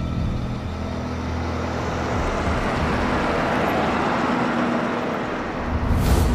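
A vintage sedan's engine running as the car drives off and passes close by, its engine and tyre noise swelling a few seconds in. A brief loud burst of noise comes near the end.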